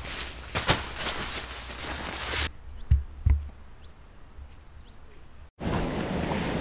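Jackets and tent nylon rustling as they are handled, then two dull low thumps and a bird's quick run of short chirps. Near the end the sound changes suddenly to steady wind on the microphone.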